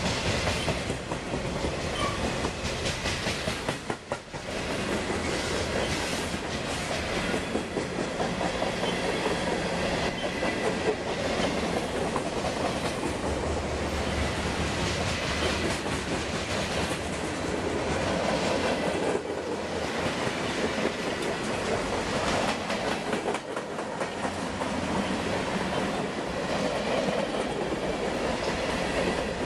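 Freight cars of a mixed freight train rolling past close by: a steady rumble and rattle with wheels clicking over the rail joints, dipping briefly about four seconds in.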